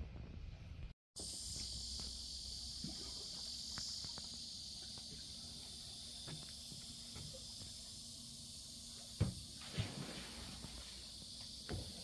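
Steady high-pitched drone of insects in lakeside vegetation. A few knocks, likely footsteps on the wooden boardwalk, come about nine and ten seconds in and again near the end.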